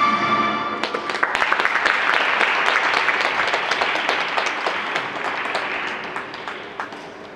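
A program's music ends on a held note just under a second in, and audience applause follows, the clapping dying away over the last few seconds.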